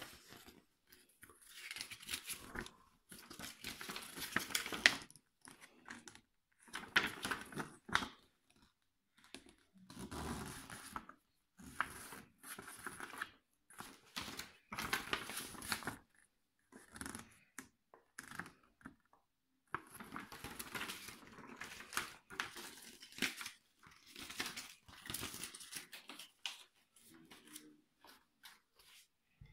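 Paper instruction leaflets rustling and crinkling as they are handled, in irregular bursts with short pauses.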